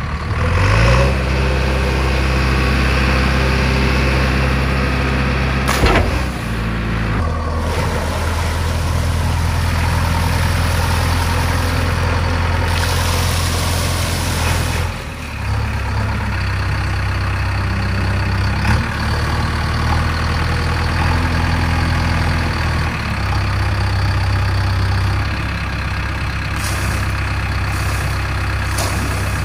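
JCB 3DX backhoe loader's diesel engine running under hydraulic load, its speed stepping up and down as the front loader bucket is raised and tipped. River water gushes out of the bucket and splashes down in a rushing pour, about halfway through and again near the end.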